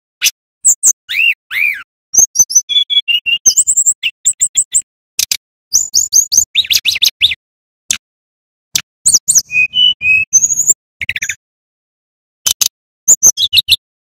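Male brown-chested jungle flycatcher singing: quick runs of short, high chirps and clear whistled notes, some sliding down in pitch, broken by brief pauses.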